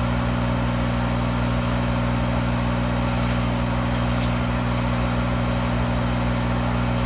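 Monarch 10EE toolroom lathe running steadily with an even hum, spinning a feed-clutch part that is being deburred with emery cloth. There are two faint, brief scratchy hisses about three and four seconds in.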